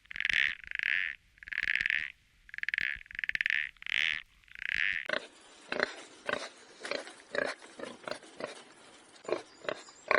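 An animal calling: a run of about seven short, fairly high-pitched calls, evenly spaced, then a sudden change about five seconds in to a quieter scatter of short grunts and clicks.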